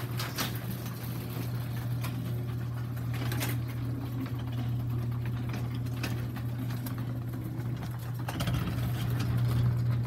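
Garage door opener running steadily as it closes the door, a low, even motor hum.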